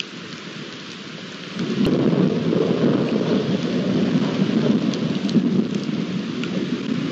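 Thunderstorm: steady rain hiss with a few sharp drop ticks, and a low rolling thunder rumble that swells about a second and a half in and keeps going.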